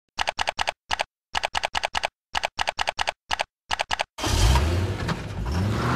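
Computer-keyboard typing sound effect: about fifteen quick keystrokes in uneven bursts, one per letter as a web address types out. A little after four seconds a loud rushing sound with a rising low hum takes over.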